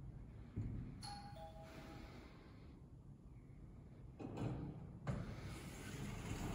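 Elevator arrival chime: two falling tones about a second in. Then the elevator doors slide open with a noisy mechanical run starting a little after four seconds in.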